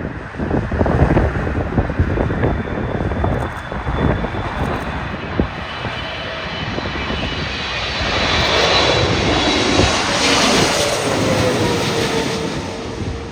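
Jet airliner passing low on approach. Its engine whine swells in the second half, with a tone that slides down in pitch as it goes by, and wind buffets the microphone in the first half.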